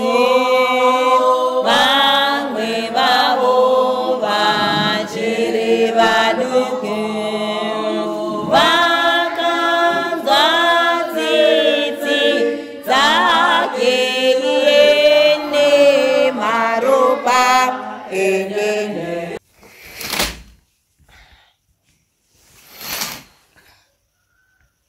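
Voices singing a Shona gospel hymn with a wavering, drawn-out melody, breaking off suddenly about 19 seconds in. Two brief thuds follow.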